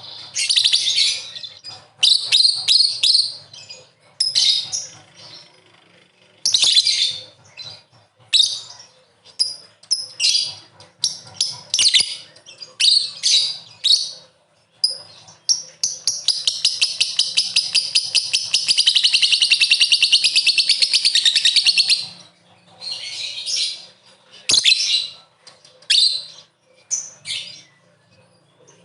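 Lovebird calling: bursts of sharp, high chirps, then a long rapid chattering trill of about six seconds (the 'ngekek' song) about midway, followed by more short chirps.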